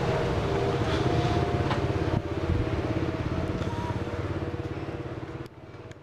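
A vehicle engine running with a rapid, even pulse, dropping in level about two seconds in and fading away near the end.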